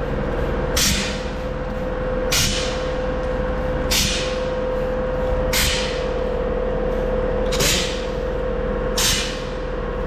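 Trigger spray bottle squirting soapy water over the welds of a pressurised fuel tank to check for leaks: a short hissing spritz about every second and a half, over a steady hum.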